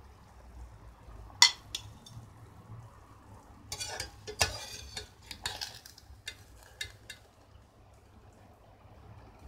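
Stainless steel slotted skimmer clinking and scraping against a stainless steel pot while scooping boiled chicken out of the cooking water. There is one sharp clink about a second and a half in, then a run of knocks and scrapes in the middle.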